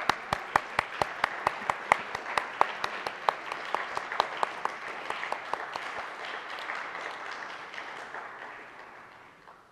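Audience applauding, with some single loud claps standing out, gradually dying away near the end.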